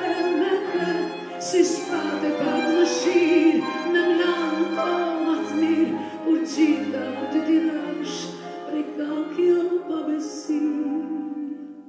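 A woman singing a sustained, wavering melody into a microphone, accompanied by piano, two violins, viola and cello; the music dies away near the end.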